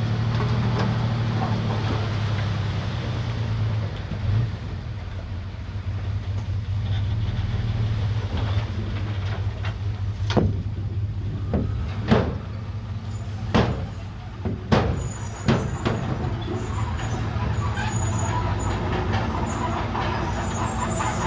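Komatsu D31PX bulldozer's diesel engine running steadily with a low drone, with five sharp metallic clanks from the machine midway through.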